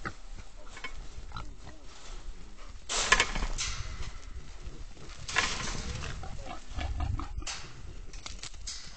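Wild hogs held in a trap, grunting and squealing, with louder outbursts of squealing about three seconds in and again around five to six seconds.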